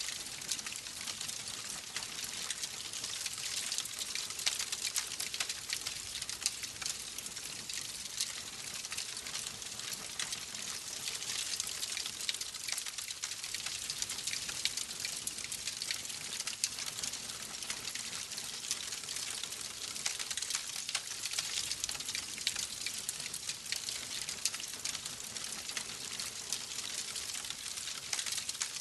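Wood fire crackling steadily, a dense run of small sharp crackles and pops over a soft hiss.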